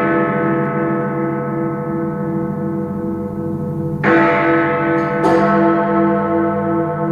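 Big Ben's clock-tower bells ringing: the long, pulsing hum of one stroke dies away, then two new strokes land about four and five seconds in, each ringing on.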